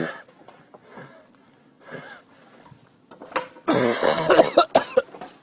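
A person coughing in fits: one at the start, a long, loud fit about four seconds in, then two short coughs.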